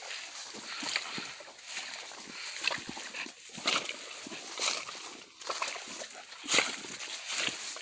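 Footsteps on a grassy, leaf-strewn dirt path beside a ditch, about one step a second, with grass and dry leaves rustling and crunching underfoot. The loudest step comes about six and a half seconds in.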